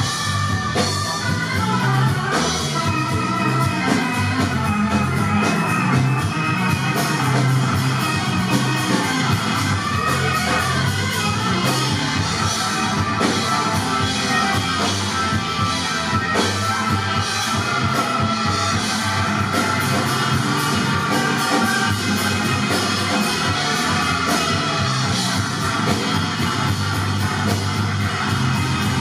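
Anatolian rock band playing live, guitar over a drum kit keeping a fast, steady beat on the cymbals.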